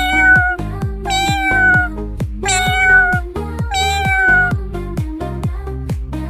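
Four drawn-out cat meows about a second apart, each holding its pitch and sagging slightly at the end, over electronic music with a steady beat.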